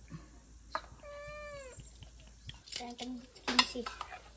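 Domestic cat meowing once, about a second in, a single drawn-out call that drops in pitch at the end. In the second half come a few sharp clicks and short bursts of voice.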